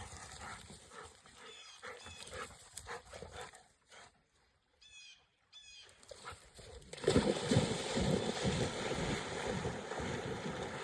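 Faint clicks and a short run of high, falling bird chirps, then about seven seconds in a sudden louder, continuous splashing starts: dogs plunging into and churning through river water to fetch a thrown stick.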